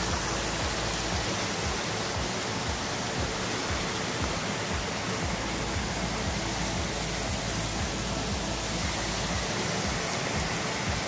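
Creek water rushing and splashing down a small rocky cascade, a steady, even hiss that does not change.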